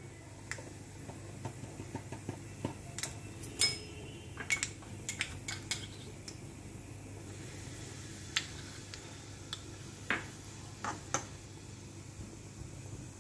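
Carom seeds (ajwain) crackling in hot oil in a small aluminium tempering pan: irregular sharp pops, up to a couple a second, over a steady low hum.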